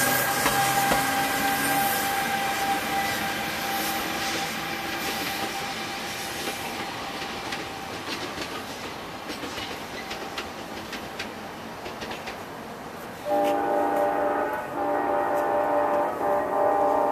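A New Jersey Transit electric train of Multilevel coaches pulls away, and its running noise fades. About thirteen seconds in, a train horn blows a loud multi-note chord in two long blasts, the second still going at the end.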